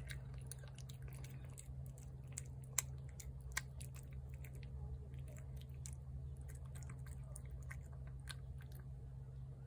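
A cat chewing and lapping wet pâté cat food from a plate, making irregular small clicks throughout. A steady low hum runs underneath.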